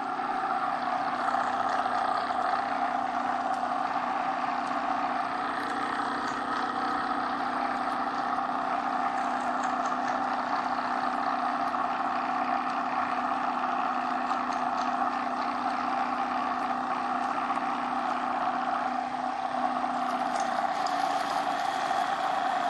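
A Vialle electric LPG pump, freshly rebuilt with new bearings and shaft, running submerged in a bucket of liquid with a steady hum and whine. Its tone shifts slightly near the end.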